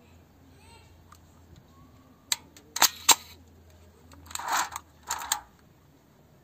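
Salut medium-format camera mechanism worked by hand at its side winding and shutter-speed knob: three sharp mechanical clicks a little over two seconds in, then two short noisy mechanical bursts near the end.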